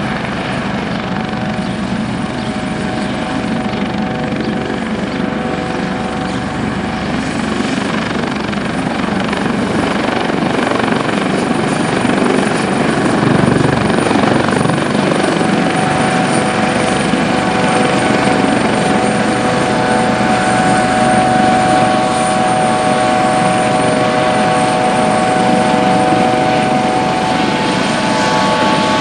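Airbus AS365 N3 Dauphin 2 helicopter flying close by, its twin turbine engines and rotors running with a steady high whine and steady blade tones, growing gradually louder.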